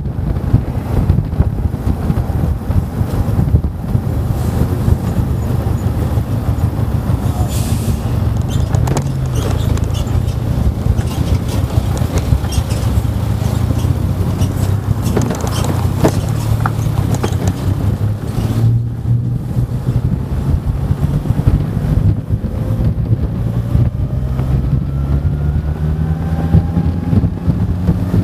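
Steady vehicle engine and road noise with wind rushing past, heard from a rider moving along a road in traffic. Near the end an engine's pitch climbs as a heavy multi-axle lorry runs close alongside.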